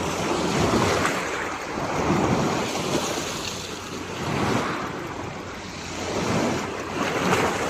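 Black Sea surf washing in, swelling and fading about every two seconds, with wind buffeting the microphone.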